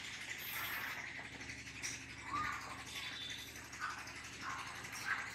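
Marker pen rubbing and squeaking on a whiteboard while words are written, in short, faint scratchy strokes.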